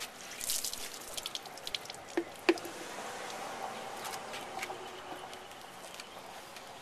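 Water poured from a plastic cup splashing onto a car's plastic headlight lens and dripping off, rinsing away the toothpaste polish. Two sharp knocks come a little over two seconds in, and then a fainter steady wash of sound follows.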